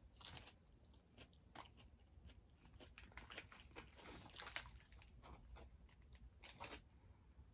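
Faint close-up chewing of a burrito: soft wet mouth clicks and smacks, with a few louder smacks about a second and a half, four and a half and near seven seconds in.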